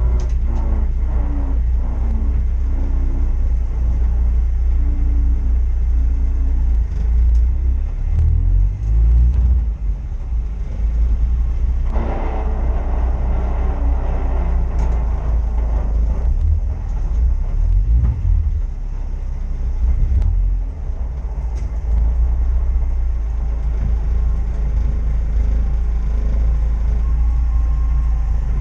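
A competition vehicle's engine running under a heavy low rumble. Its note steps up and down in pitch over the first few seconds, and a burst of louder, rougher noise comes about twelve seconds in.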